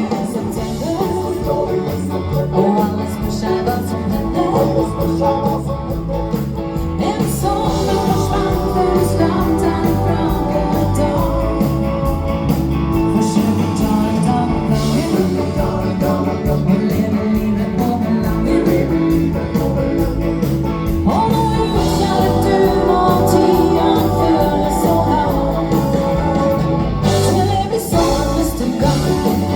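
Live dance band playing a song with a singer over a steady beat and strong bass.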